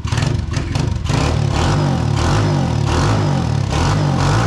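Single-cylinder engine of a newly assembled 125cc dirt bike, brought up from idle about a second in and held at higher, wavering revs on its first start.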